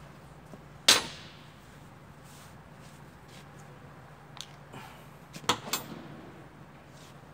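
Hand tools being handled on a workbench: one sharp knock with a short ring about a second in, then a few lighter clinks of metal tools later on.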